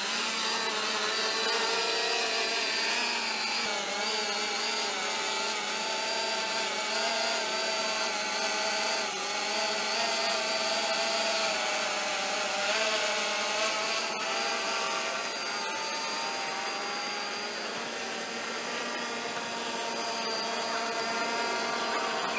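Quadcopter drone's motors and propellers making a steady, loud whining buzz of several tones that waver slightly in pitch as it lifts off and flies.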